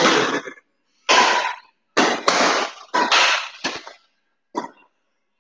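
Badminton rackets striking a shuttlecock in a doubles rally: a string of sharp hits roughly a second apart, each trailing off in echo.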